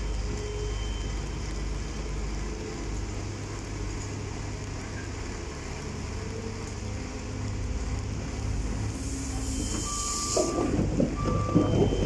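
Volvo wheeled excavator's diesel engine running steadily. Near the end a short burst of hiss, then rattling and clanking, with a reversing alarm beeping over it.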